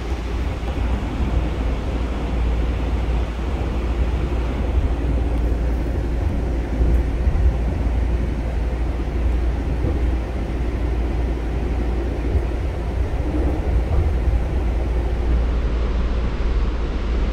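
Steady rumble and rushing noise of a passenger train riding along the rails.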